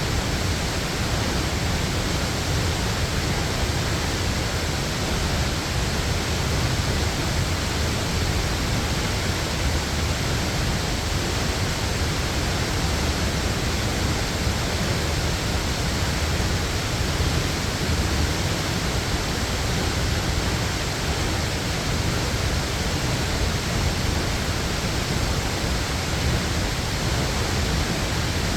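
Waterfall: a steady, loud rush of falling water, heavy in the low end, with no change throughout.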